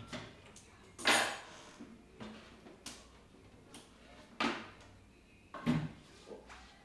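About half a dozen sharp clinks and clatters a second or so apart, like metal tools or parts being picked up and set down on a workbench, loudest about a second in and again near the end.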